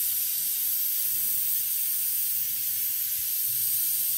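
Pressurised refrigerant hissing steadily out of a Jeep Liberty's air-conditioning service valve as it is held open to empty the system; a steady, high-pitched hiss.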